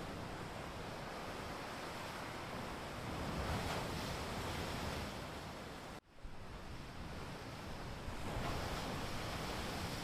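Steady outdoor rushing noise that swells twice, broken by a brief sudden dropout about six seconds in.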